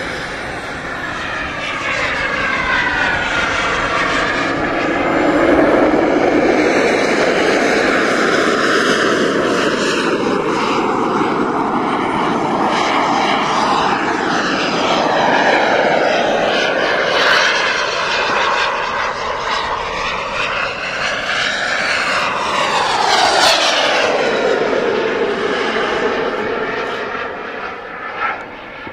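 JetCat P200 model turbine engine of a 24 kg Mirage 2000 jet model running at high power through its take-off run and climb. It makes a steady jet rush and whine that sweeps up and down in pitch as the model passes, growing fainter near the end.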